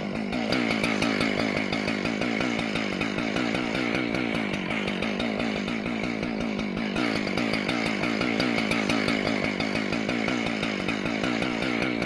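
Gas chainsaw running steadily at speed while cutting a buckthorn trunk, easing slightly for a few seconds in the middle.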